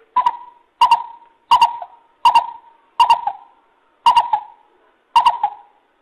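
Greater coucal calling: a series of seven short, low hoots repeated about every 0.7 s, each note stuttering in two or three quick pulses.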